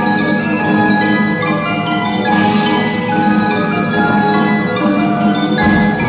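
Percussion ensemble playing a melodic arrangement on marimbas and xylophone, with many ringing mallet notes at once. A deep low rumble joins near the end.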